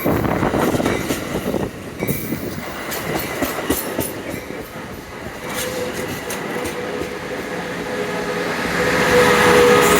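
Passenger train rolling into the station: wheels clattering over the rails with scattered clicks, and a steady whine that comes in about halfway through. The sound grows louder toward the end as the train draws closer.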